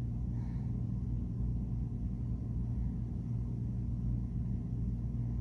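Steady low rumbling hum with no distinct events, its sound sitting in the bass.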